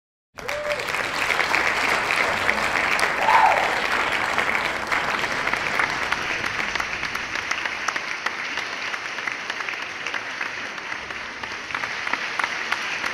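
Audience applauding, starting suddenly out of silence just under half a second in, with a brief shout from the crowd about three seconds in.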